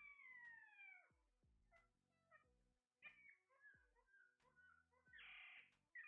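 Alexandrine parakeets calling faintly: falling calls about a second long at the start and again about three seconds in, short chirps in between, and a harsh squawk near the end.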